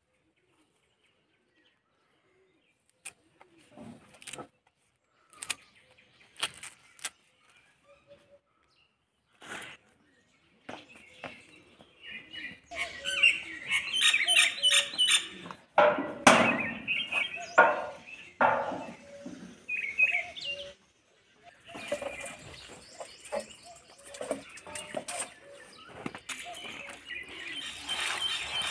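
Scattered snaps and rustles of spinach stems being broken off the leaves by hand, then small birds chirping repeatedly over the second half. Near the end, water pours and splashes over leaves in a plastic basin.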